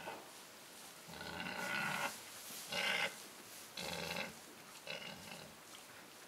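Pig grunting: four calls about a second apart, the first the longest.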